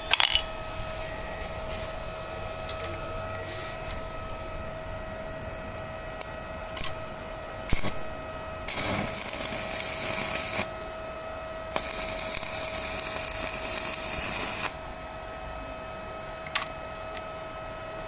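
Small inverter arc welding machine: a steady whine from the machine, with two stretches of welding-arc hiss about two and three seconds long, and a few sharp clicks.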